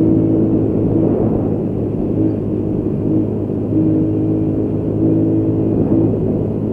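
Motorcycle engine running at a steady pitch while riding, with a low wind rumble on the microphone.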